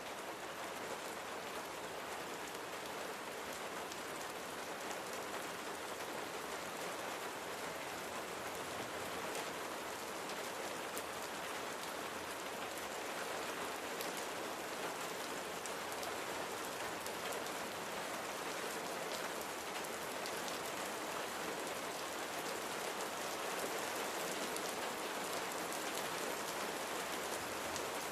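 Steady rain falling, an even hiss with many fine droplet patters on a surface.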